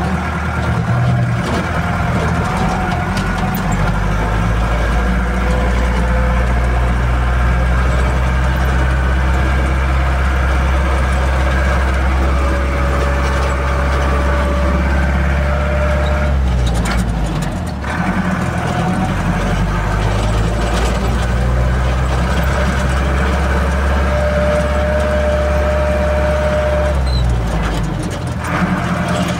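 Engine and tyre noise heard inside the cab of a truck driving on a dirt road: a steady low drone with rattling road noise above it. The drone drops away briefly twice, a little past the middle and near the end.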